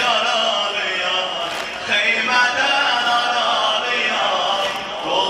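A crowd of men chanting together in phrases, a Shia Muharram mourning chant (şuar).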